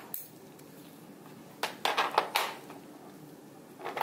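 Steel surgical instruments (needle driver and the like) clicking and clinking while suturing: a quick cluster of several sharp clicks about two seconds in, and one more near the end.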